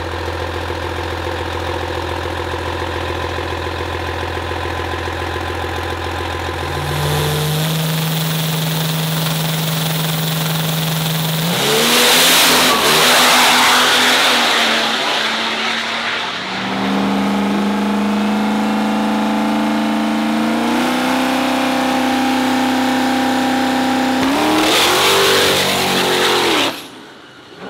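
Diesel drag-race trucks' engines running hard at high revs. Their steady notes jump to new pitches several times, with two loud full-throttle surges about twelve and twenty-five seconds in.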